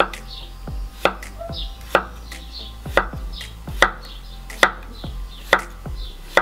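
Cleaver-style kitchen knife slicing a zucchini into half-rounds on a wooden cutting board. Each cut ends in a sharp knock of the blade on the board, about one a second.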